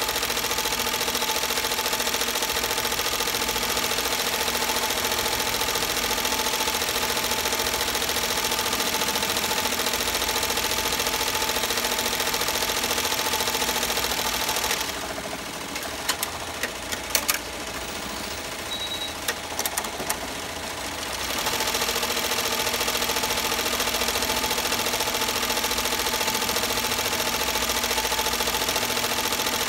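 Multi-needle embroidery machine running, a steady fast mechanical rattle of the stitching. About halfway through it stops for roughly six seconds, with a few sharp clicks, then starts up again.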